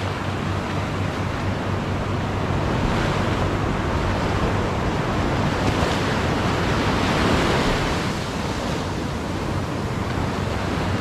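Small waves breaking and washing up over a sandy shore, the surf swelling and easing as each wave comes in.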